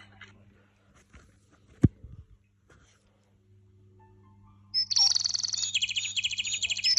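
A single sharp knock about two seconds in, then a pet parrot giving a loud, rapid, high-pitched trilling call from near the end.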